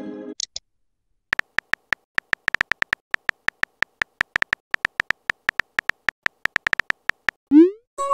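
Texting-app keyboard typing sounds: a quick, irregular run of short clicks as a message is typed letter by letter. Near the end comes a short rising whoosh as the message is sent.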